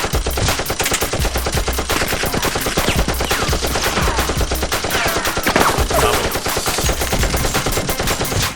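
Automatic gunfire: a long run of rapid shots with no break, with a few brief falling whistles between them.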